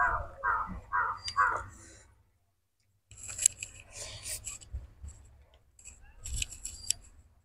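Close-miked eating of biryani by hand: steady rhythmic chewing for about two seconds. After a brief gap come wet, crackly smacking and clicking sounds as fingers work the rice and a handful goes into the mouth and is chewed.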